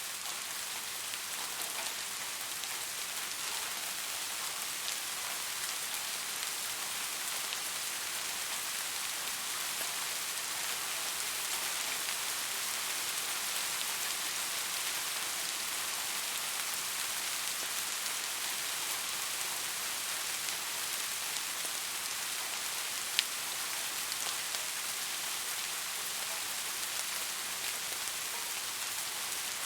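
Steady rain falling, an even hiss with faint scattered drop ticks and one sharper tick about three quarters of the way through.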